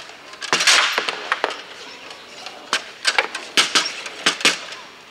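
Bonzini foosball table in fast play: sharp knocks and clacks of the ball struck by the rod figures and hitting the table, in several quick clusters, the loudest about half a second to a second in.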